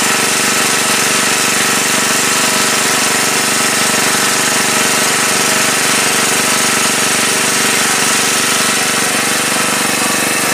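Small engine-driven water pump running steadily at an even speed, with a fast, even chug, pumping water out of the ditch.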